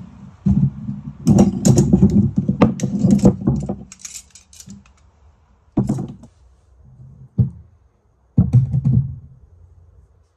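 Pieces of scrap metal clattering and clinking as they are handled: a dense run of knocks for the first few seconds, then three separate knocks spaced a second or two apart.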